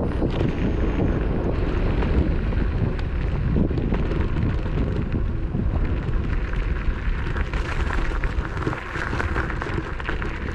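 Steady rushing wind buffeting the action camera's microphone while riding a Mototec Thor 60V electric scooter at speed.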